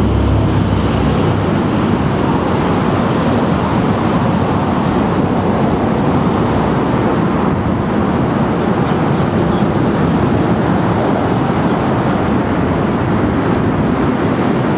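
Steady, even noise of road traffic.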